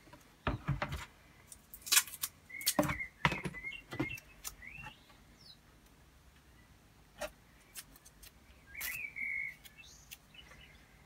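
Knocks and clicks of painted droid parts being handled and set down on a workbench, several in the first four seconds and a couple more later. A few short bird chirps sound in the background.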